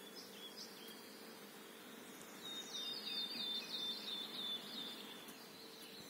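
A songbird singing: a few short high chirps near the start, then a fast run of repeated falling notes lasting about three seconds. A faint steady hum runs underneath.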